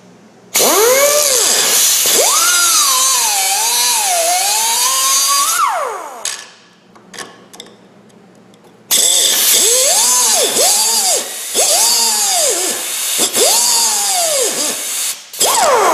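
Air-powered cutoff tool with a small abrasive wheel cutting off the protruding ends of steel bolts, with a loud hiss of air and grinding. It starts about half a second in and spins down about six seconds in. After a short pause it starts again, and its whine dips each time the wheel bites into the metal, over several short cuts.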